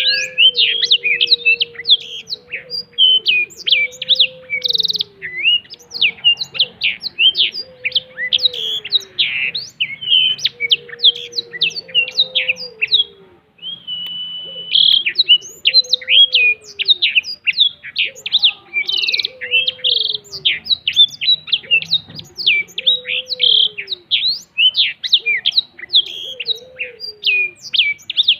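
Blackthroat (black-throated canary) in full song: a long, fast, continuous stream of high chirps, trills and short held whistles, with a brief break about halfway. Underneath, a lower falling call repeats about every second and a half.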